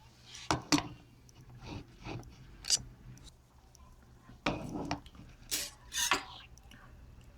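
Handling noises from the head massager and its packaging: a series of short scrapes, rustles and light clinks, about eight in all, with a pause in the middle.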